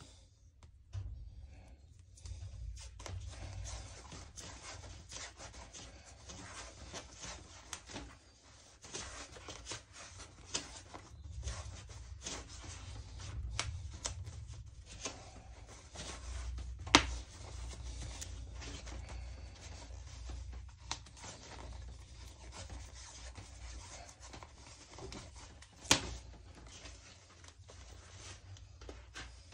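Black insulation tape being pulled off its roll and wrapped around air-conditioner pipe insulation: a steady crackling rub with scattered sharp clicks and snaps, the two loudest a little past halfway and near the end, over a low handling rumble.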